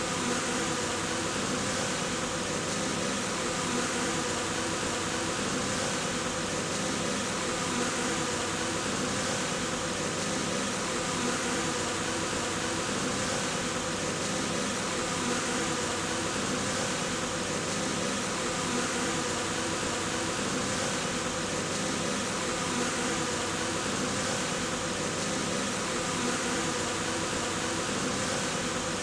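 Steady, unbroken hum of many honeybees buzzing together, with an airy hiss over it.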